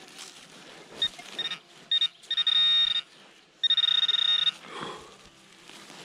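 Handheld metal-detecting pinpointer beeping in the dug hole: a few short high beeps, then two continuous warbling tones of about a second each. The probe is close to a metal target.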